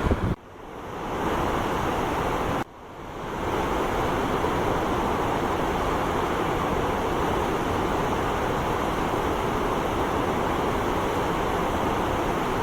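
Steady rushing of water, an even noise with no pitch, that cuts out abruptly twice in the first three seconds and fades back in each time.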